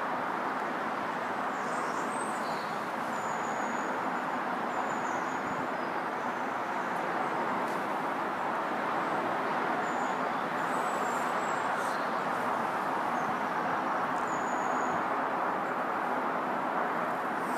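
A steady distant rumble of vehicles, slowly growing a little louder, with a few faint high chirps of small birds.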